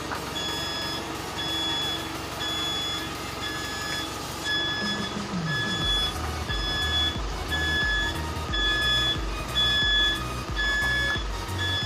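Hyundai light truck's reversing alarm beeping steadily, about three beeps every two seconds, as the truck backs up. A low rumble underneath grows louder about halfway through.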